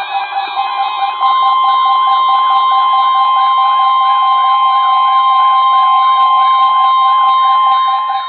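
Emergency Alert System attention signal: a single steady high alert tone, the weather-radio warning tone that comes before an alert message, sounding from about a second in and held unbroken. A fainter rhythmic warbling runs underneath.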